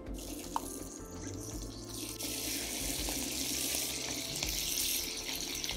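Cubes of lamb sizzling as they are dropped into hot clarified butter in a stainless steel pan to be seared. The sizzle grows fuller and a little louder about two seconds in as more pieces go in.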